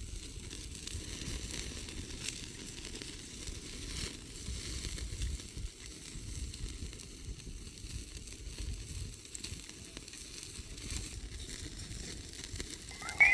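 Food sizzling as it fries, a steady crackling hiss. A brief sharp sound stands out near the end.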